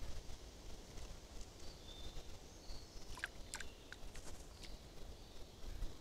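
Forest ambience: a steady low rumble with faint, high, short songbird notes in the distance, and a few sharp clicks about three seconds in.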